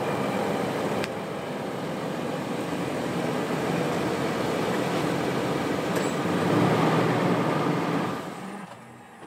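2019 Toyota 4Runner's 4.0-litre V6 running as the SUV backs slowly, with tyre noise on asphalt, getting louder as it rolls close by. The sound fades away about a second before the end.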